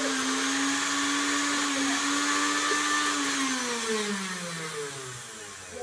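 Countertop blender with a glass jug running with a few grapes inside: a steady motor whine that is switched off about three seconds in and then winds down, falling in pitch and fading.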